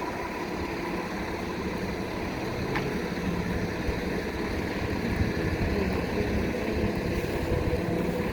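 Wind buffeting the microphone: a continuous, fluctuating low rumble.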